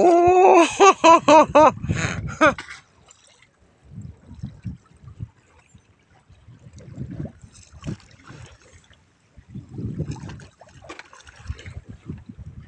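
Seawater sloshing and lapping against the hull of a small boat, in irregular low bursts. In the first two seconds a person's voice is louder, in a quick run of rising and falling notes.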